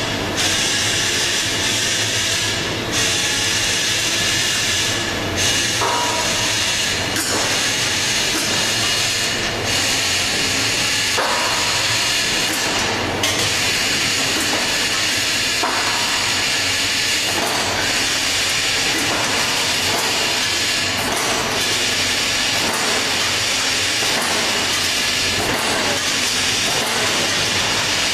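Steady hiss and rumble of a CNC beam punching line running on the factory floor, with faint regular knocks about once a second in the second half.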